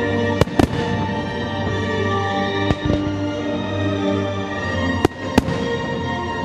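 Fireworks shells bursting in the sky: five sharp bangs, a close pair about half a second in, a single one near three seconds, and another close pair about five seconds in. Steady music plays under the bangs throughout.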